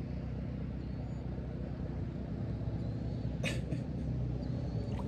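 Strong wind buffeting the microphone, a steady low rumble, with a brief click about three and a half seconds in.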